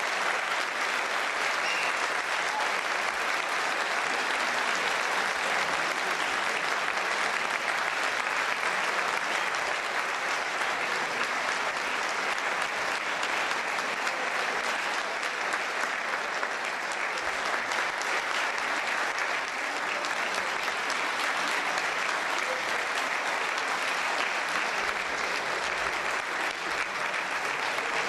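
A large seated audience applauding, with steady, sustained clapping that does not let up.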